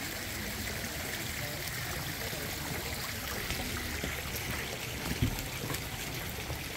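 Small garden fountains running, a steady trickling and splashing of water. A brief low thump about five seconds in.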